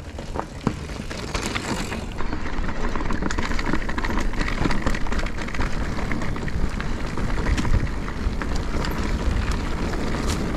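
Mountain bike riding down a rough, wet trail: steady tyre noise and low rumble with many quick knocks and rattles from the bike over the terrain, getting louder about two seconds in.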